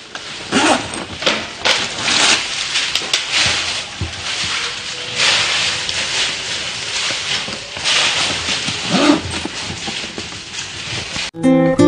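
Rustling, scraping and clicking of a handbag being handled and unzipped on a wooden table. Acoustic guitar music cuts in abruptly near the end.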